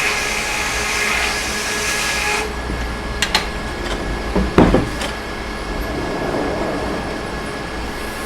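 Sawmill machinery running steadily with a low hum. A high hiss cuts off about two and a half seconds in, followed by a couple of sharp clicks and a heavier clank near the middle.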